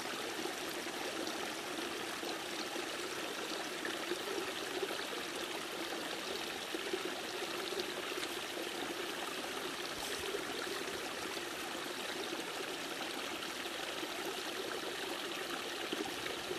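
A mountain stream rushing steadily, an even water noise with no breaks.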